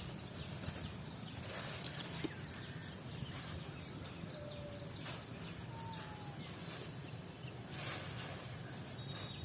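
Outdoor ambience with a steady background hiss and a few short, faint bird calls scattered through it.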